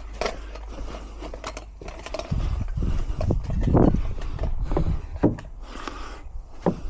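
Scattered knocks, taps and scrapes of a cut piece of timber being handled and test-fitted into place.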